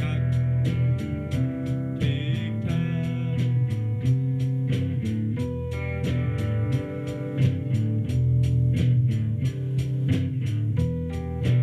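Music led by guitar, with a steady beat ticking about three to four times a second.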